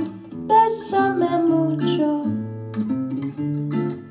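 Recorded song played back over hi-fi loudspeakers: an instrumental break in which a guitar picks a melody that steps downward over bass notes, between the sung lines.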